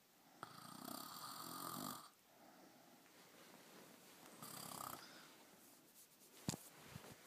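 A woman snoring in her sleep: one long snore starting about half a second in and lasting about a second and a half, then a shorter snore about four and a half seconds in. A short sharp click follows near the end.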